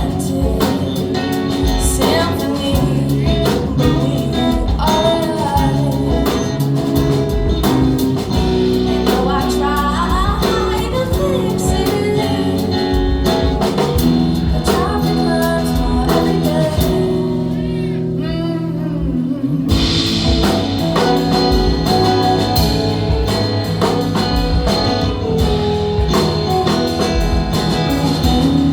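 Music with singing over guitar and a steady beat, thinning out briefly about two-thirds of the way through.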